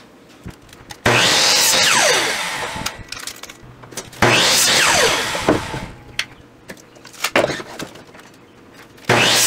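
Ryobi compound miter saw cutting blocks off a 2x4: three cuts. Each starts abruptly with the motor's whine and the blade going through the wood, then a falling whine as the blade spins down after the trigger is let go. A few knocks of wood blocks come between the cuts.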